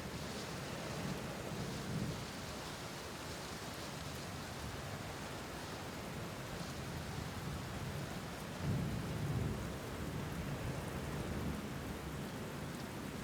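Steady rain falling, with low rumbles of thunder; the strongest roll comes about nine seconds in.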